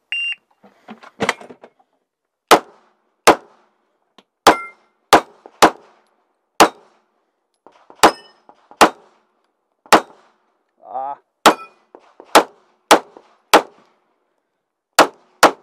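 Shot timer's start beep, then a Glock 17 Gen 3 9 mm pistol firing about fifteen shots over some thirteen seconds. The shots come in quick pairs and runs of three with longer pauses between, and each is followed by a short echo.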